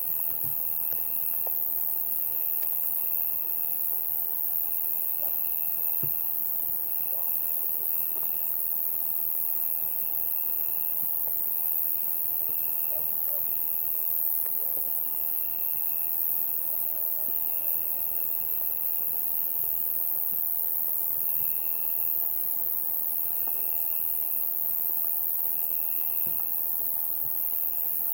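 Summer night insect chorus: a steady, very high-pitched hiss of many insects. Over it, a lower cricket trill comes and goes in spells of a second or two with short breaks between.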